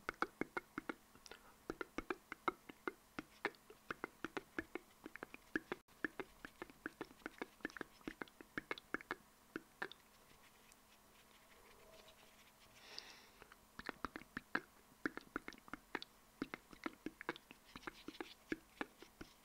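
Close-miked ASMR mouth sounds: fast runs of small wet clicks and smacks of the lips and tongue. They pause for a few seconds just past the middle, where there is a soft breath, then start again.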